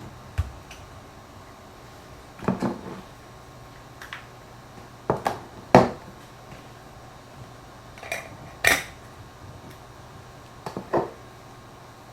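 Camera gear being handled: a series of separate clicks and knocks of hard objects, several of them sharp and loud, with pauses of a second or two between.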